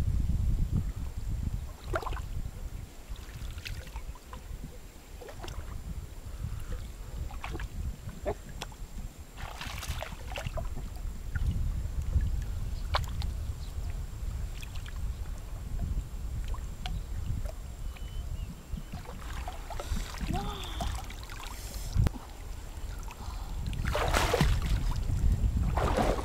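Shallow river water sloshing and splashing around a person wading and working a wet cast net, with small drips and splashes throughout. Near the end comes a louder, longer rush of water as the net is hoisted out and drains.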